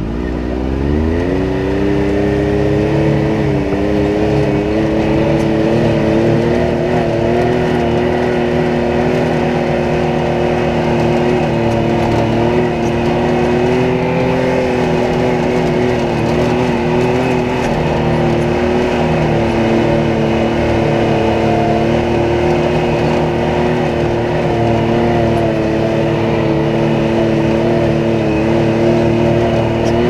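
Can-Am side-by-side's engine, heard from inside the open cab, revving up in the first second or two and then pulling at steady high revs with small rises and dips in pitch.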